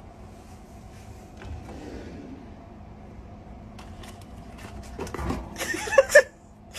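Kitchen drawer pulled open, with a run of light clicks and rattles from the drawer and the cat-food tins inside over a low steady room hum. A few short voiced sounds come near the end.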